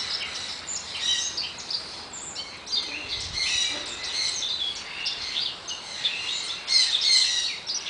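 Small monkeys making a dense, continuous chatter of short, high-pitched chirps and twitters, many calls overlapping.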